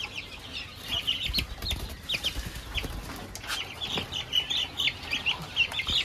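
Caged quail and chickens calling together: many short, high chirps overlapping throughout, with a few soft knocks from the pen.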